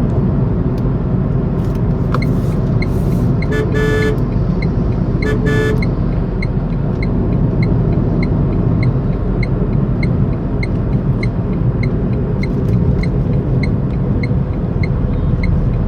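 Cabin noise inside a moving Tata Tigor with the air conditioning on at fan speed 2: a steady low drone from its three-cylinder petrol engine and the road. A car horn sounds briefly twice, about four and five and a half seconds in, and a faint regular tick, about one and a half a second, runs through most of it.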